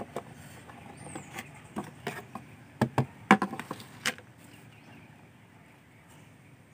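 Clear plastic containers handled on a wooden table: a string of light clicks and knocks, the loudest about three seconds in, dying away after about four seconds.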